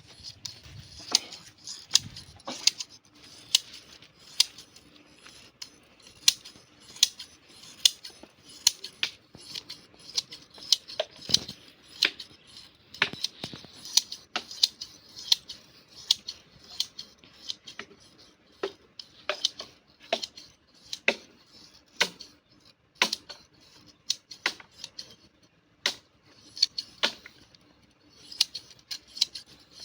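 Large hand scissors snipping through a sheep's wool during shearing: a steady run of short, sharp snips, one or two a second at an uneven pace.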